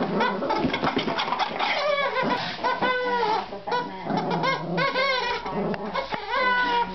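Pink rubber chicken squeak toy squawking over and over as a small Affenpinscher mix puppy bites and shakes it, each squawk short and bending in pitch.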